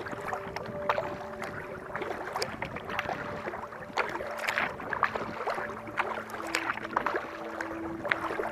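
Kayak paddle strokes in calm water: the blades dipping in, with a run of irregular small splashes and drips.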